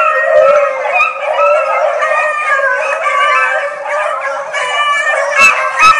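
A pack of rabbit hounds baying together, several voices overlapping as they run a cottontail's trail. Two sharp knocks near the end.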